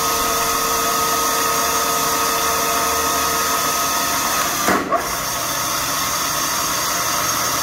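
Vertical milling machine's spindle motor running steadily while power-tapping a hole in steel, with a brief sudden dip in the sound about five seconds in.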